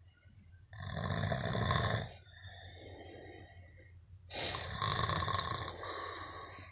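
A man snoring in his sleep: two long, loud snores on the in-breath, each lasting about a second and a half to two seconds, a few seconds apart, with quieter breathing between.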